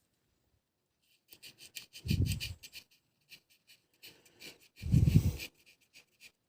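Quick scraping strokes on the graphite contact discs of an electric sewing-machine pedal's carbon-pile speed controller, being cleaned of burnt deposits. The scraping comes in two short spells, each with a dull low thump.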